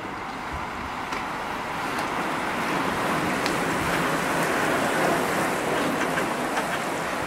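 A pack of road racing bicycles passing close by on a wet road: a steady hiss of tyres on wet tarmac, swelling as the nearest riders go past.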